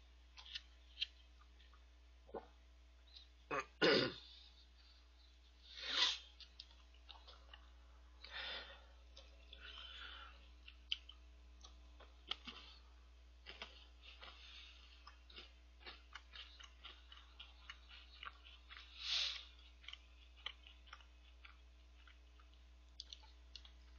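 Close-miked chewing of a chocolate cereal snack in milk: soft wet clicks and smacks, broken by a few louder breathy mouth noises about four and six seconds in and again near the end.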